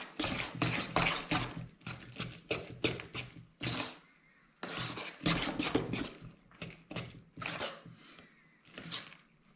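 Kitchen utensils scraping and knocking against cookware in quick, irregular strokes, with a short pause about four seconds in.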